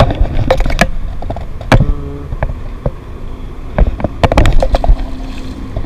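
Wind rumbling on the microphone, with scattered sharp knocks and clicks of handling noise, a quick cluster of them about four seconds in as the peacock bass is let go.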